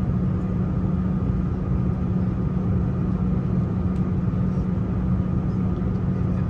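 Steady cabin hum of an Airbus A330-900neo parked at the gate, its air-conditioning running: an even low drone with a faint steady high whine.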